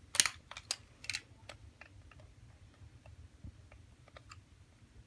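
Hands handling small hard objects: scattered clicks and taps, the loudest about a quarter second and a second in, then fainter and sparser.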